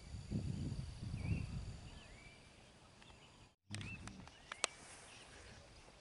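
Birds chirping in short rising and falling calls over a low rumbling noise in the first couple of seconds. Just after halfway the sound cuts out for an instant, then a few sharp clicks follow.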